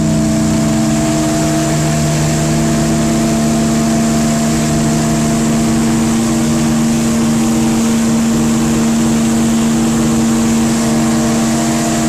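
A ship's whistle sounding one long, unbroken blast, a deep chord of several notes held steady over a hiss.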